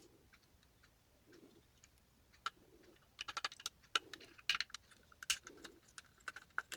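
Faint, light clicks and taps of a small screwdriver and the plastic shell of a computer mouse being taken apart, sparse at first and coming thick and fast from about three seconds in.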